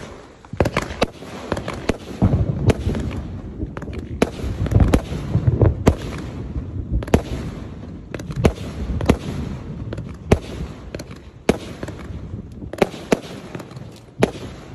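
A 100-shot firework cake of 1.2-inch tubes firing in quick succession: sharp launch thumps and bursting bangs come one to three a second, with a low rumble between them. The shots are densest over the first six seconds and come more sparsely after.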